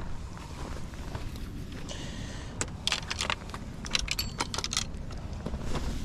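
Low wind rumble on the microphone, with a run of sharp clicks and crunches from about halfway to near the end: footsteps on rocky, gravelly ground.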